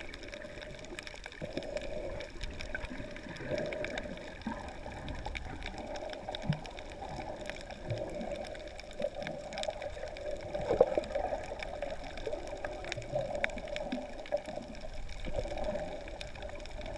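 Muffled underwater sound picked up by a GoPro camera held under the water: sloshing and gurgling water movement that swells and fades, with scattered faint clicks.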